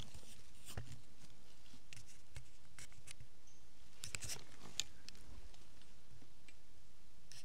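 Scattered crackles and rustles in dry leaf litter and brush, with a denser cluster of sharp clicks about four to five seconds in.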